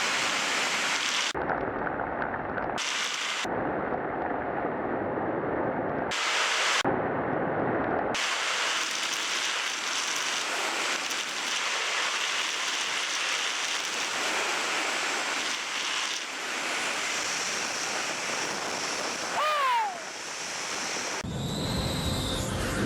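Wind rushing over the microphone of a motorcycle rider at road speed, a steady noisy rush, with a short falling tone about nineteen seconds in.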